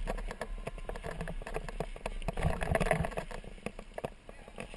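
Kickbike rolling over wet asphalt while being towed, its frame rattling with many small irregular clicks and knocks, a little louder about halfway through.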